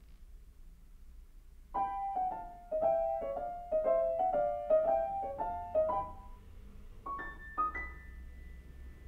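Steinway & Sons grand piano: after a short pause, a quick run of about a dozen notes in the middle register, then two high notes, the last left ringing as the closing note of the piece.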